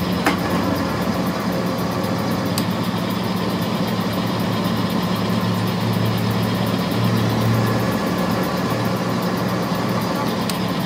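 Metal lathe running steadily as a cutting tool turns down a car's CV joint axle shaft, a constant motor hum with the hiss of the cut, and a brief click about a quarter second in.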